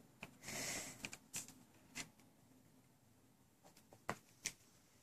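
Faint handling noise: a few scattered light clicks and a brief soft rustle, with near-quiet room tone between them.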